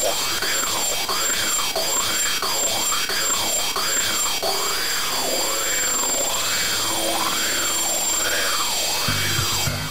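A siren-like wailing tone sweeping up and down, a little under once a second, over loud steady hiss that cuts off just before the end.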